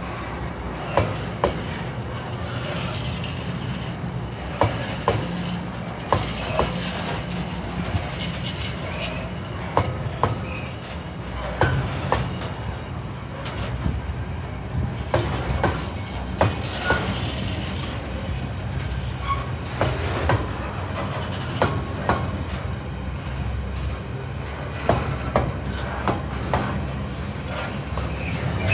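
Container freight train's flat wagons rolling past: a steady low rumble, with repeated sharp clicks in small clusters as the wheelsets cross rail joints.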